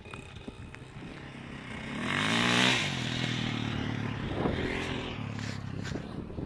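1982 Yamaha YZ80's single-cylinder two-stroke engine as the bike rides past. The engine note rises to its loudest about two and a half seconds in, then drops and runs on more quietly. The engine is freshly rebuilt with a new piston and is being ridden gently to run it in.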